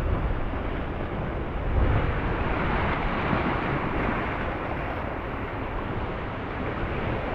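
Wind buffeting the microphone over sea surf washing against the rocks: a steady rushing noise that swells about two seconds in.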